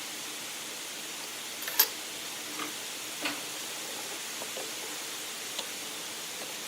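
A steady hiss with a few scattered light clicks and knocks, the sharpest about two seconds in.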